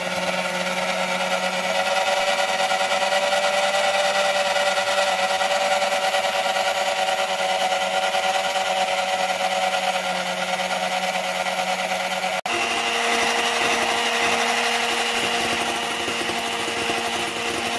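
Electric hand mixer running steadily, its twin metal beaters whipping egg whites in a glass bowl toward stiff peaks. The motor briefly cuts out about twelve seconds in, then runs on at a slightly different pitch.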